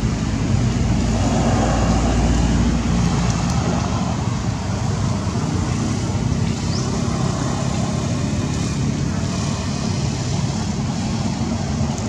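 Steady rumble of passing motor traffic, with a deeper rumble for the first three and a half seconds.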